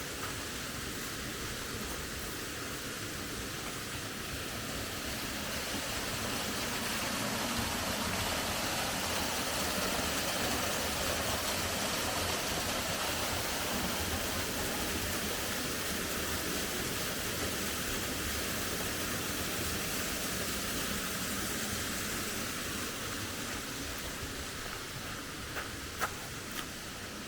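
Steady rush of falling water from a waterfall, swelling a little in the middle and easing off again, with a couple of faint clicks near the end.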